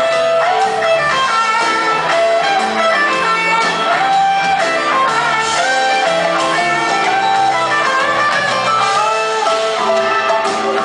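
Rock band playing live: an electric guitar plays a melodic lead of held, bending notes over bass, drums and keyboards.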